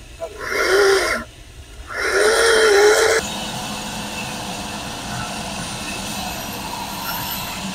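Corded electric chainsaw cutting into a log in two short bursts, its pitch dipping in each. About three seconds in it gives way abruptly to the steady running of a band saw cutting through a log.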